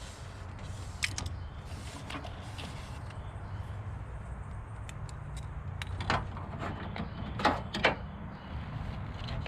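A few sharp plastic clicks from working the little locking tabs of a wiring connector loose, over a steady low hum.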